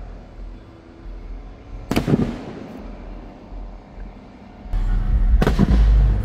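Fireworks bursting in the sky: a sharp bang with an echoing tail about two seconds in, then a loud low rumble and a second bang about five and a half seconds in.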